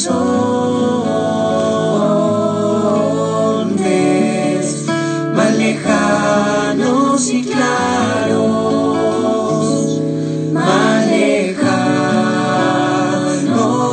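Church worship song: voices singing held notes over instrumental accompaniment.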